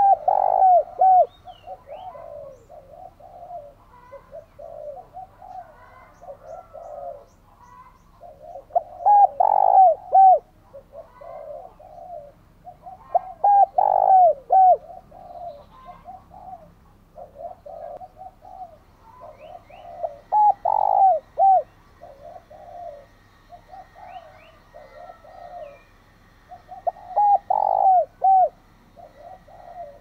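Spotted dove (a decoy male) giving its urging call, meant to lure wild doves. There are five loud coo phrases several seconds apart, with softer cooing between them.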